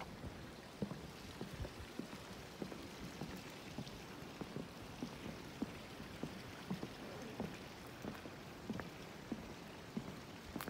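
Footsteps on a wooden boardwalk at an even walking pace, a little under two steps a second, over a steady soft hiss.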